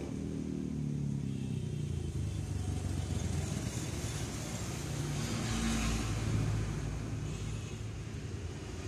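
Motor vehicle engine running past, a low rumble that swells to its loudest about six seconds in and then fades.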